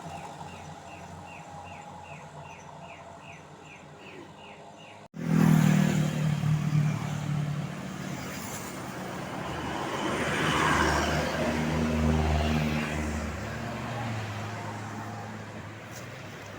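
Road traffic with a bus passing close by. After an abrupt cut about five seconds in, its engine runs loud and steady, then swells with tyre and wind rush and fades away. Before the cut, a faint chirp repeats about three times a second over quieter traffic.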